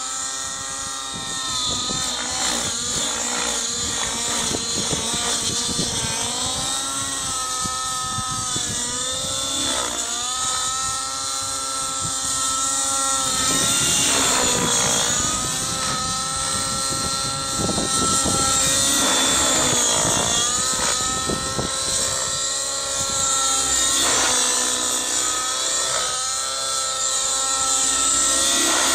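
Radio-controlled Trex 700 helicopter flying 3D aerobatics, its rotor whine rising and falling in pitch over and over as it manoeuvres.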